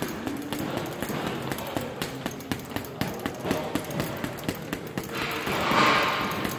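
Boxing gloves smacking a double-end bag in quick, irregular punches, several sharp hits a second. About five seconds in, a louder rushing noise swells for over a second.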